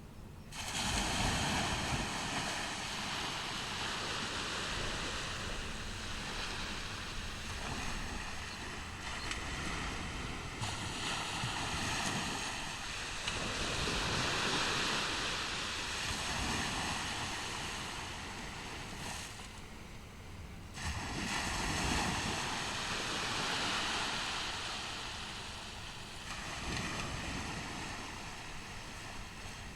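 Ocean surf on a beach: waves break and wash in and out in repeated surges, with a sudden new break near the start and another about two-thirds of the way through.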